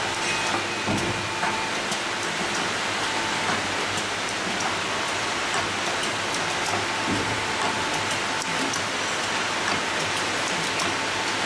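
Paper baking-cup making machine running: a steady, dense hiss of machinery with fine rapid clicking and a faint steady whine.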